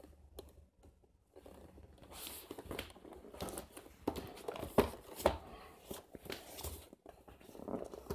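Scissors cutting through the seal stickers on a cardboard box, with the box crinkling and rustling as it is handled. After a quiet first second or so comes an irregular run of sharp snips and crinkles.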